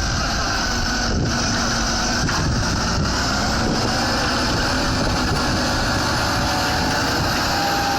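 Fendt 930 tractor's six-cylinder diesel engine running steadily under load while ploughing.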